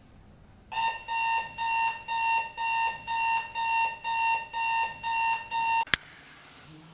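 Bedside electronic alarm clock beeping in a steady pulse, about two beeps a second, cut off about six seconds in by a sharp click as a hand switches it off.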